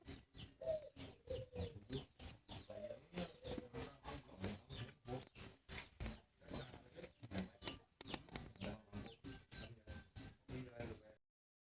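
Cricket chirping: short, high, pure chirps about three a second, with brief breaks about three seconds in and around the middle, stopping shortly before the end.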